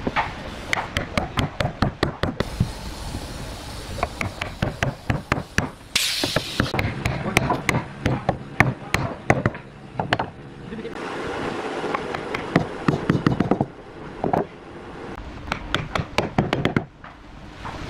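Irregular run of sharp wooden knocks and taps as the pieces of a wooden table base are fitted together and handled, several a second in places.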